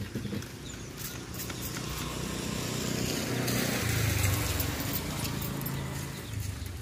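A motor vehicle passing by, its engine drone swelling to a peak about four seconds in and then fading. A few light clicks near the start.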